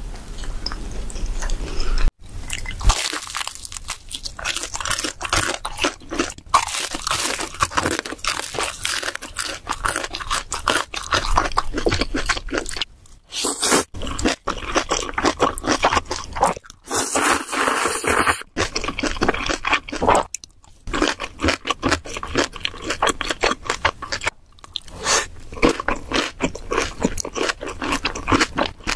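Close-miked eating sounds: crunchy bites and wet chewing, broken by several abrupt cuts between clips.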